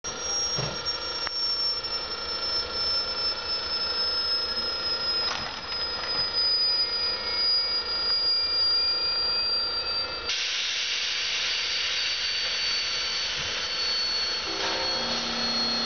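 ČD class 162 electric locomotive pulling away with its train, giving a high, steady whine that slowly sinks in pitch over a bed of blower noise. About ten seconds in a hissing rush joins, and a low hum comes in near the end.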